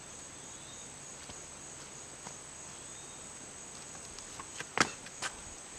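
Insects chirring in a steady, high-pitched drone. Two sharp knocks come near the end.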